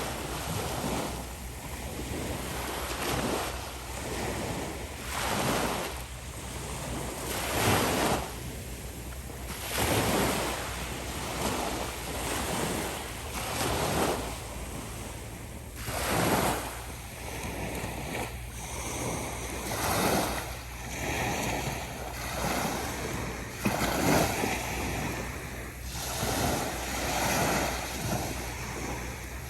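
Calm ocean waves breaking and washing onto the shore, one small wave after another, swelling and fading about every two seconds.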